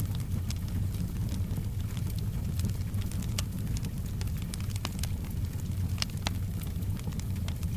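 Wood fire in a fireplace crackling, with sharp pops at irregular moments over a steady low rumble of the burning.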